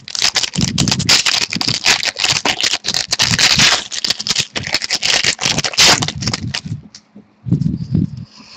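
Foil wrapper of a trading card pack crinkling and tearing as it is opened by hand: a dense run of crackles that dies down about seven seconds in, with a few soft bumps of handling after.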